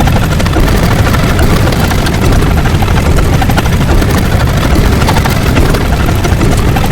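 Loud, steady machine noise, heaviest in the low end, with a fast, even pulsing throughout.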